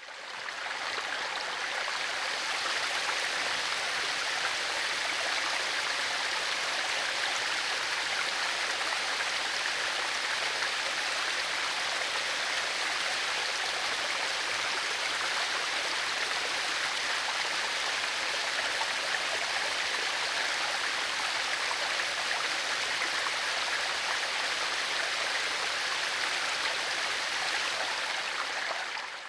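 Tiered waterfall: water pouring over rock ledges and splashing in a steady, even rush. It fades in at the start and out at the end.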